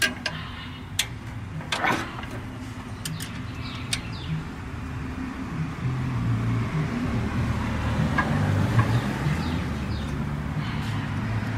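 Light metal clicks and taps of a wrench and screwdriver on the rocker-arm valve adjusters of a VW Type 3 engine while the valve lash is being set, a handful in the first four seconds. A low vehicle engine hum swells in the background through the second half.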